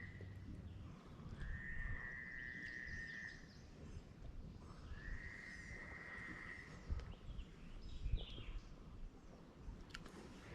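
An animal's steady high trilled call, about two seconds long, repeating three times over low outdoor background noise.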